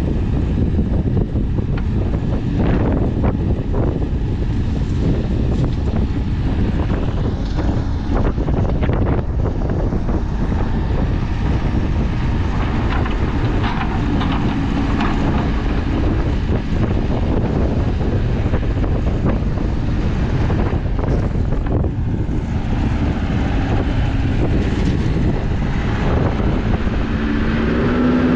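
Backhoe loader's diesel engine running under load while the arm digs, its note lifting briefly about halfway through and again near the end, with occasional knocks and scrapes and wind buffeting the microphone.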